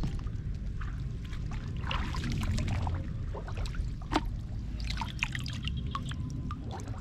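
Shallow muddy water sloshing, trickling and dripping as a hand searches through it among floating plants, with many small drips and splashes. Near the end, water drips off a small turtle lifted out of the water.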